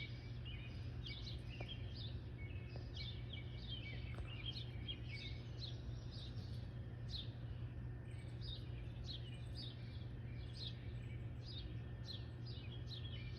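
Several small birds chirping continuously, a rapid, overlapping series of short high chirps that fall in pitch, over a steady low hum.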